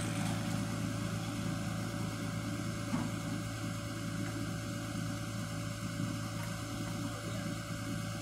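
A low, steady purring chorus of frogs calling from a partly frozen pond, a dense rapid pulsing that goes on without a break.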